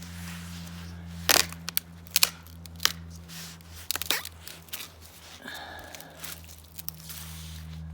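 A few sharp snaps and crunching of pine twigs and foliage being broken and dragged, over a steady low hum.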